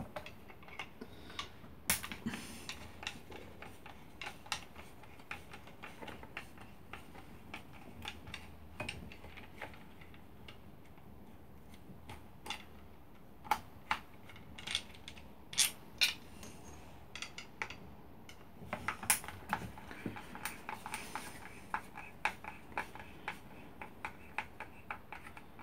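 Irregular small clicks and taps of a Katsu trim router's alloy body, plastic housing and screws being handled and set down on a mat while it is taken apart, busier about two-thirds of the way in.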